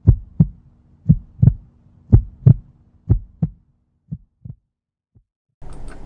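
Heartbeat sound effect: four loud double thumps about a second apart, then fainter beats that die away. A steady faint room hiss begins near the end.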